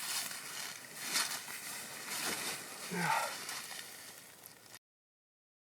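Gusty wind noise with rustling, ending in a sudden cut to dead silence.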